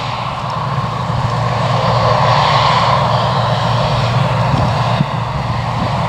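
John Deere 670i combine harvester running steadily while cutting wheat: a continuous machine drone with a higher hum over it, getting a little louder about two seconds in.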